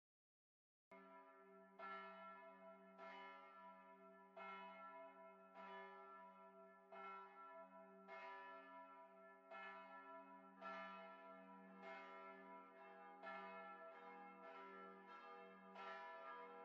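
Bells ringing faintly, struck over and over at roughly one stroke a second with the tones ringing on between strokes, starting about a second in after a moment of silence.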